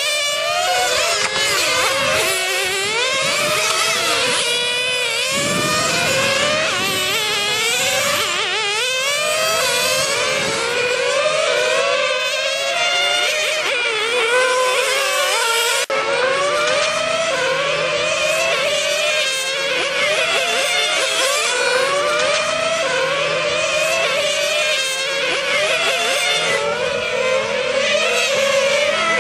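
Several 1/10-scale nitro RC touring cars' small glow engines whining at high revs, several at once. Their pitch rises and falls over and over as the cars accelerate and lift through the corners.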